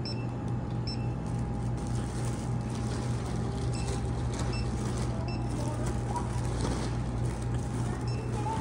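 Handheld barcode scanner at a checkout beeping as items are scanned: several short, high beeps at uneven intervals over a steady low hum.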